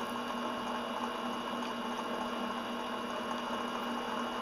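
Mill-drill running steadily, its drill bit boring a hole through a metal propeller-shaft tube held in the vise: an even motor hum with a constant whine over it.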